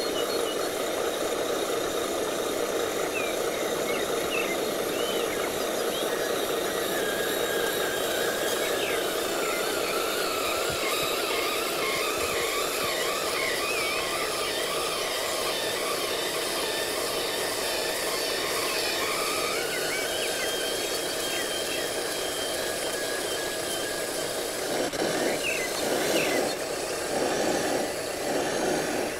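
Radio-controlled hydraulic dump truck raising its tipper bed: a steady mechanical whirring with a high squealing whine that holds for a few seconds at a time. Near the end it gets louder and rougher as the load of soil slides out of the bed.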